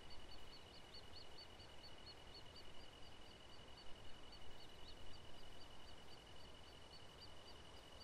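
Faint late-summer pondside ambience: a steady, high insect trill, with short high chirps repeating about four times a second over it.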